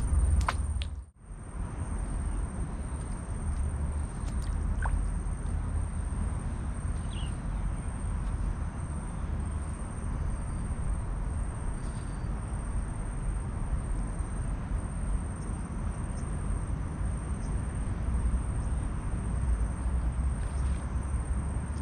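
Outdoor ambience dominated by a low, fluctuating rumble of wind buffeting the microphone, with a faint steady high-pitched tone above it. The sound drops out briefly about a second in.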